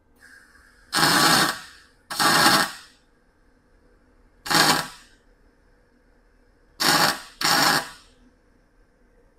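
MIG welder tack-welding a steel exhaust pipe in place: five short bursts, each under a second, the last two close together.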